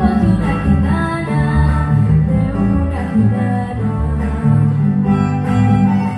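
Live bambuco, a Colombian folk song: a woman singing to acoustic guitars and violin.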